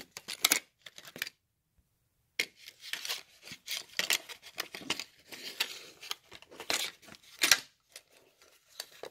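Stiff clear plastic blister packaging crackling and tearing as it is pulled open by hand, in a string of sharp crackles and snaps with a pause of about a second near the start.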